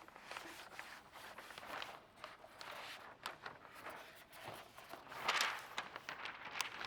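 Quiet footsteps and handling noises: many light clicks and rustles, with a short hiss about five seconds in.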